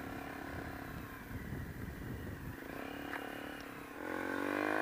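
Honda XR125's single-cylinder four-stroke engine running at low revs under a low rumble. About four seconds in it revs up, its pitch climbing steadily as the bike accelerates.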